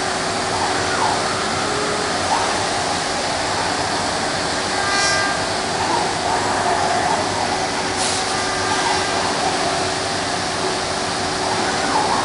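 5-axis CNC working centre machining solid wood: the spindle and cutting tool run steadily through the wood. A brief whine comes about five seconds in, and a short sharp sound about eight seconds in.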